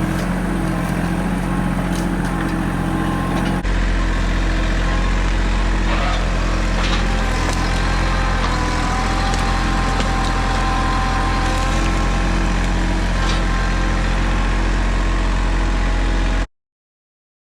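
Tractor engine running steadily. The drone jumps louder and deeper a few seconds in, and the sound cuts to silence about a second before the end.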